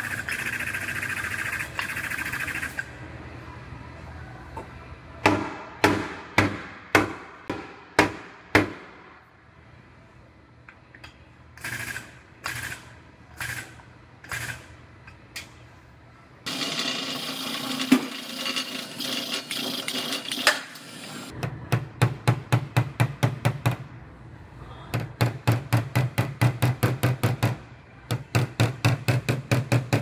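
Body hammer striking a car's steel quarter panel in quick runs of about four blows a second, tapping down buckles left by a rear-end hit, over the last third. Earlier come spells of steady noise and a series of single sharp knocks about half a second apart.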